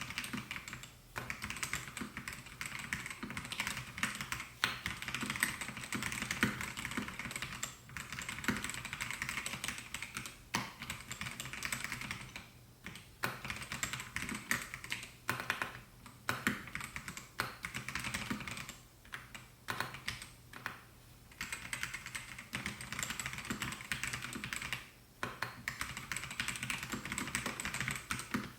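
Continuous typing on a Melgeek Mojo68 mechanical keyboard with white switches: dense runs of keystroke clacks, broken by short pauses a few times.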